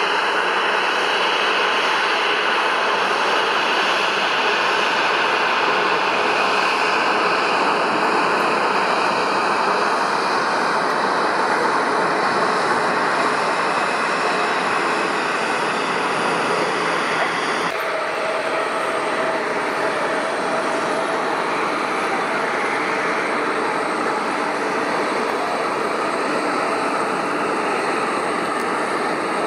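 Jet airliners' engines during landings, a loud steady rushing noise. About two thirds of the way through it changes abruptly to a second aircraft's engine noise, with faint steady whining tones.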